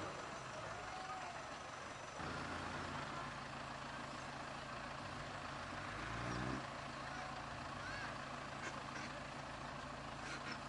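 Off-road 4x4 truck engine running, with a brief rise in revs about six seconds in, heard over faint background voices.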